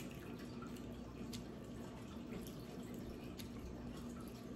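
Aquarium filter trickling water with a faint steady hum, under a few faint soft ticks.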